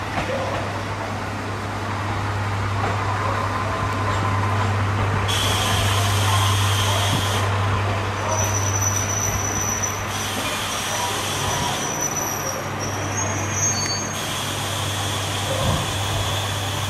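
A train standing at a station platform: a steady low hum, with a hiss that starts and stops three times.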